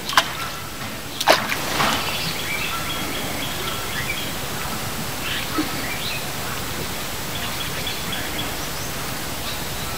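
Birds chirping against a steady outdoor hiss, with two sharp slaps about a second apart near the start.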